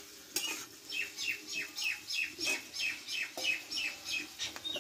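A bird calling a steady series of short, high, downward-sliding notes, about three a second.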